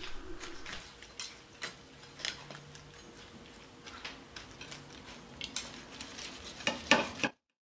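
Carving knife and two-pronged carving fork cutting into a cooked whole chicken on a platter: faint, scattered clicks and scrapes of metal against the plate, a louder cluster near the end, then the sound cuts off suddenly.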